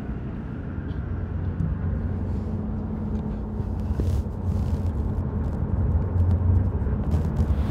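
Ford pickup truck heard from inside the cab while cruising on a highway: a steady low drone of engine and road noise that grows a little louder in the second half.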